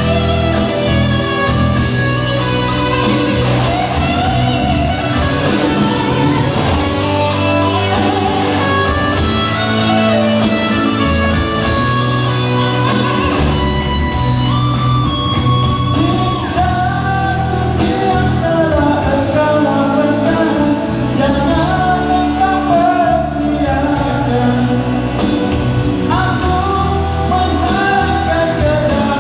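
Live band music: a song with singing over guitar and a steady beat.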